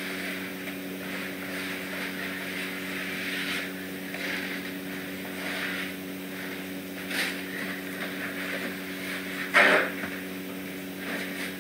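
Steady low mechanical hum with a faint hiss, over light handling noise; a small click, then a sharp knock about ten seconds in.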